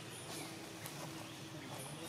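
Faint outdoor background: a steady low hum lasting about a second and a half, with a few short high chirps.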